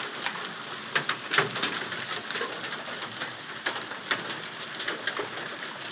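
Hail and rain falling, hailstones striking hard surfaces in many irregular sharp clicks over a steady hiss of rain.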